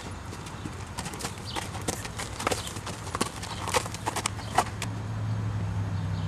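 Hooves of a mare and her foal walking on a dirt paddock: irregular sharp steps and scuffs, thickest in the middle. A steady low hum runs underneath and grows louder near the end.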